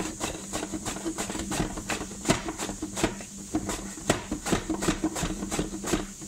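Peeled raw potato pushed back and forth across a plastic mandoline slicer's blade, cutting thin chip slices: a quick, even rhythm of scraping strokes, about three a second.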